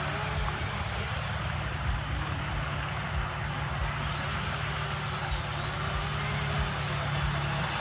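Steady outdoor water-park ambience: a continuous low rumble and hiss, with a few faint, thin high tones that rise and fall now and then.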